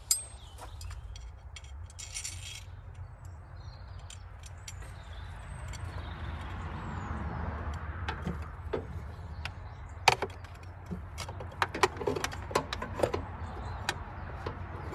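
Metal clinks and rattles of a universal battery clamp's rods and hooks being handled and tried against the battery and body holes, scattered sharp ticks with a louder one about ten seconds in, over a steady low hum.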